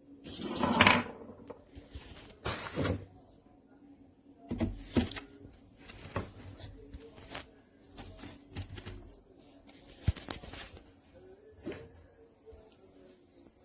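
A run of knocks, clicks and clatter from objects being handled and set down, with a brief louder rushing clatter near the start and another a couple of seconds later.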